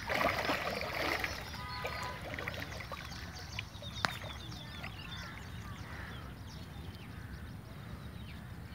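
Water splashing as a hooked softshell turtle thrashes at the surface. The splashing is loudest in the first second or so, then dies down to quieter stirring of the water.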